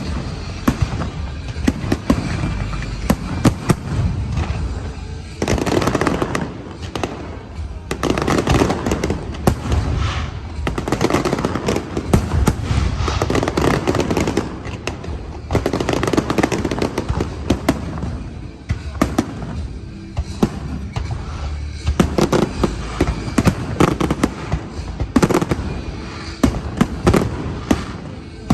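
An aerial fireworks display: a rapid, continuous run of shell bursts, bangs and crackles, thickening into dense volleys several times, with music playing underneath.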